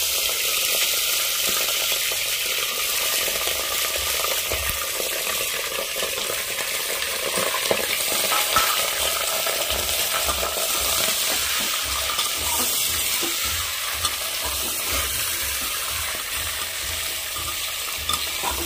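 Raw mutton pieces sizzling steadily in hot oil in an aluminium pressure cooker, just added to the pan. A perforated steel skimmer stirs them, scraping and clinking against the pot now and then.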